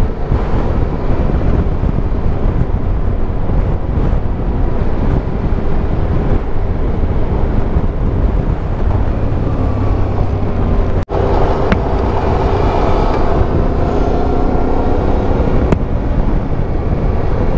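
Yamaha Ténéré adventure motorcycle riding at steady speed, its engine running under heavy wind noise on the helmet microphone. The sound cuts out for an instant about eleven seconds in, after which the engine's note stands out more clearly.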